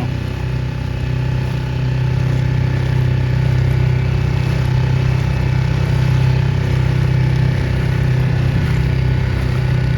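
Mercury 6 hp four-stroke outboard motor on an inflatable dinghy running steadily, a constant low engine drone.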